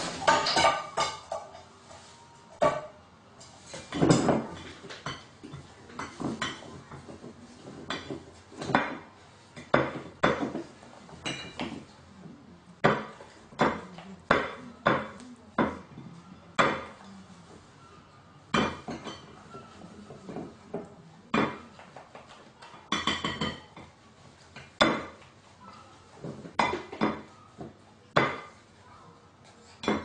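Gull pecking at food on plates, its beak knocking the crockery in irregular sharp clinks and clatters a second or two apart. A denser clatter at the start.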